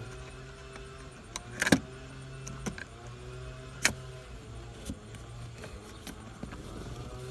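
Clicks and knocks of plastic trim on a car's gear shift console being handled and fitted, the sharpest about a second and a half in and another near four seconds, with smaller taps between, over a steady low hum.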